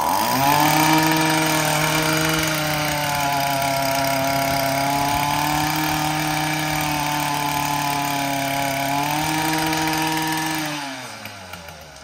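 Gas string trimmer engine revved to full throttle: it jumps up at once and holds a steady high pitch for about ten seconds, then the throttle is released and it winds down toward idle near the end.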